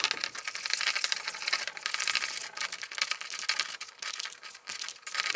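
Metal spoon stirring a thick sunflower seed butter mixture in a ceramic bowl: rapid, irregular clinks and scrapes of metal against the bowl.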